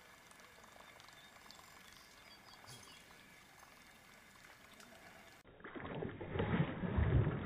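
Whopper Plopper topwater lure being reeled across a pond, its spinning tail churning and plopping on the surface. Faint at first, it turns much louder and splashier about five and a half seconds in, with a heavy low thump near the end.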